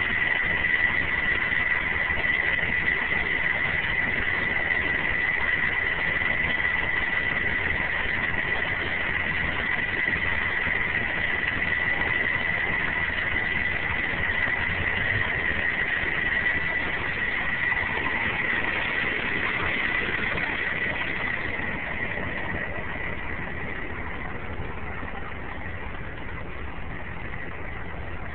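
M818 5-ton military truck's Cummins six-cylinder diesel engine running steadily as the truck climbs a gravel hill, with a steady high whine over the engine noise.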